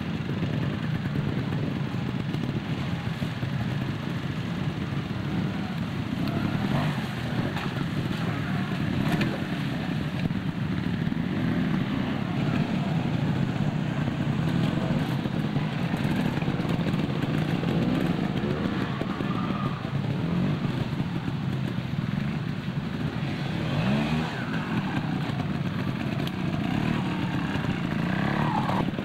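Trials motorcycle engines running at low revs, with a few short rises in revs about three-quarters of the way through and near the end.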